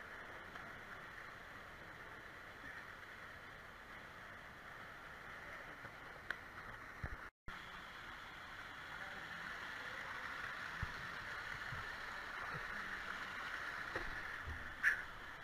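Faint water noise, first in the pool and then running down a water slide. It cuts out briefly in the middle and grows slightly louder over the second half, with a short knock shortly before the end.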